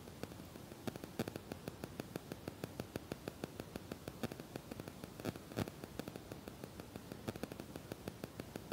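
Kitchen knife chopping cooked chicken on a plastic cutting board: a quick run of light taps, several a second, over a steady hiss.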